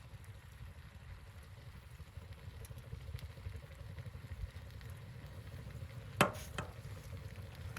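Steady low rumble of wind, with faint scattered ticks, and a sharp knock about six seconds in followed by a smaller one just after.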